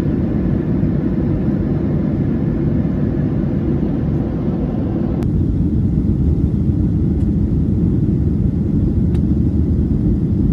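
Steady low rumble of an airliner's engines and airflow heard from inside the cabin. About five seconds in, the higher part of the noise drops away and the low rumble carries on.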